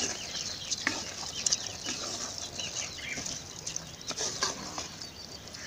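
Ladle stirring soaked rice into wet mushroom masala in a clay pot, giving irregular scrapes and knocks. Birds call in the background.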